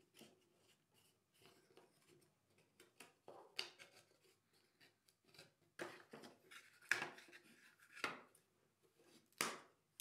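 Faint, scattered clicks and taps of laser-cut plywood parts being handled and pushed into their slots during dry assembly, a handful of separate knocks a second or so apart.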